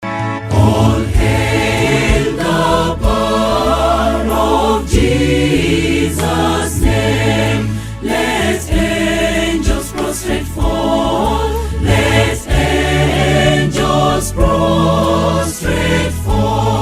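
Gospel choir singing over a band with a steady bass and beat.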